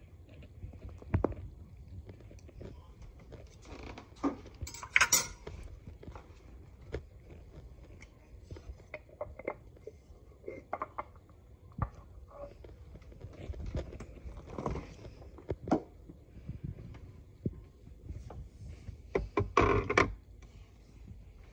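A table knife scraping jam across toast and clinking against a glass jam jar, with scattered clicks and knocks as the jar is handled. Near the end, the glass jar knocks and scrapes as it is set on a fridge shelf.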